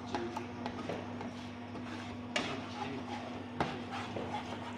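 Spatula scraping and tapping against a nonstick frying pan while eggs are scrambled in it, with a sharper knock a little over two seconds in and another about three and a half seconds in. A steady low hum runs underneath.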